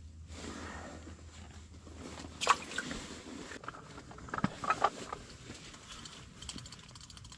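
Ice-fishing tackle being handled: a sharp knock about two and a half seconds in and a cluster of clicks a couple of seconds later, then a fast, even ticking near the end as the small inline ice reel is worked.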